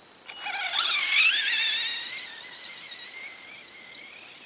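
Electric motor and drivetrain of an Axial Exo Terra RC buggy whining as it accelerates away. The pitch wavers and climbs in the first second, then settles into a steady high whine that slowly fades as the buggy moves off.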